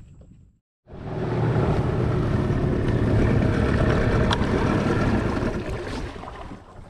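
Boat engine running steadily, then fading away near the end.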